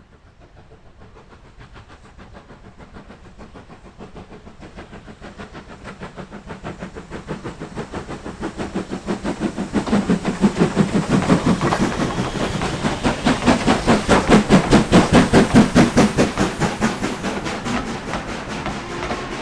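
Steam locomotive working a train, its exhaust beats coming fast and even, growing louder as it approaches and loudest a little past two-thirds of the way through, then easing slightly as it passes.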